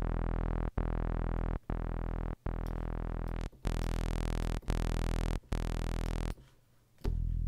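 Synth bass from Logic's Alchemy Moog Bass preset, a sawtooth tone through a low-pass filter, playing one low note again and again, each held under a second. Its brightness changes as the filter envelope is reshaped: about halfway through the notes turn much brighter. After a short gap near the end they become short plucks that start bright and quickly dull as the envelope's decay shortens.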